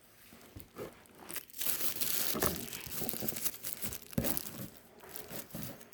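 Plastic wrapper crinkling and rustling as it is handled, with a few sharper crackles.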